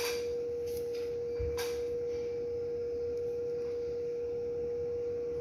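A steady, unchanging mid-pitched tone, with a few faint soft taps in the first two seconds.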